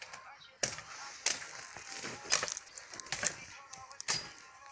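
Hatchet chopping dead wood: a series of sharp strikes, roughly one a second, with splintering and cracking of the wood between them.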